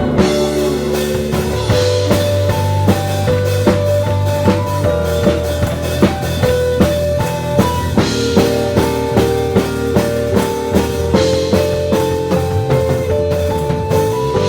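Band playing an instrumental passage of a worship song: a drum kit keeps a steady beat under bass and held melodic notes, with no singing.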